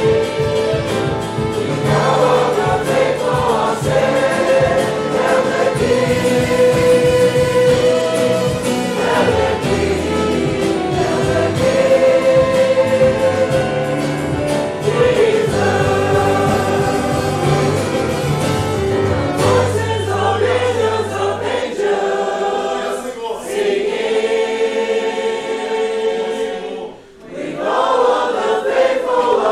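A church congregation singing a hymn together, with instrumental accompaniment. The low bass accompaniment stops about two-thirds of the way through, and the singing dips briefly near the end.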